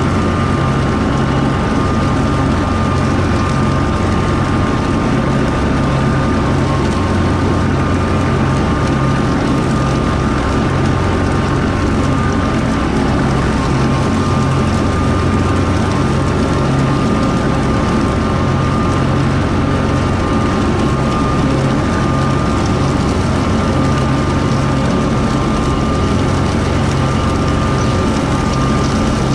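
Kubota M4-071D tractor's diesel engine running steadily under load, driving a Woods BW12 batwing rotary mower while mowing. There is a steady high whine over the low engine sound.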